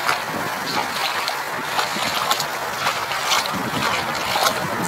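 Rubber boots wading through shallow floodwater, a splash with each step at about two a second, over a steady hiss.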